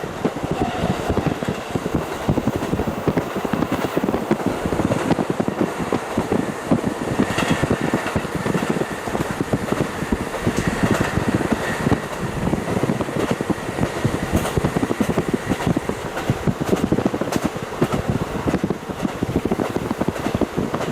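KiHa 40 diesel railcar running along the line, heard from inside with the window fully open: a steady, loud, rough din of engine, running gear and rushing air. A faint high whine comes in for a few seconds around the middle.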